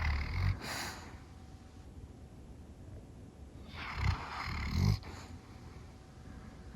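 Yellow Labrador snoring in her sleep: two rasping snores about four seconds apart, the second building up and cutting off sharply, with a short breathy puff just after the first.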